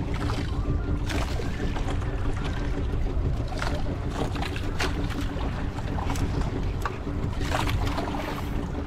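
Boat engine running steadily, a low even hum, with scattered short knocks and splashes of water over it.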